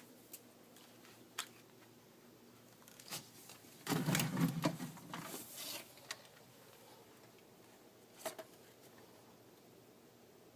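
Gear being handled: a few scattered sharp clicks, with a brief burst of rustling and scraping about four seconds in.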